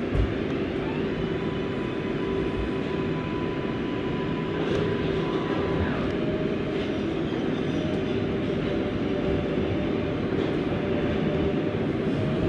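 R188 New York City subway train pulling out and gathering speed: a steady running hum, with the traction-motor tones climbing slowly in pitch as it accelerates, and a small low thump right at the start.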